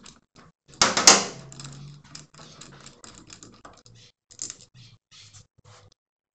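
Hand tool working on the spark plug of a Honda C90's cylinder head as the plug is unscrewed: a sharp metallic knock about a second in, then a run of irregular light clicks and scrapes.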